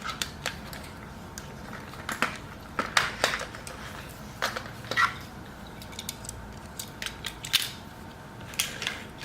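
Plastic Hot Wheels playset pieces being handled and fitted together: a string of irregular sharp clicks and knocks.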